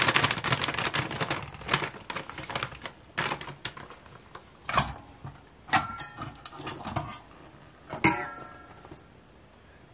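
Ragi flour pouring from a crinkling packet into a steel mug, a dense rustling patter at first. Then about four sharp clinks of the steel mug against a stainless steel bowl, the later ones ringing briefly.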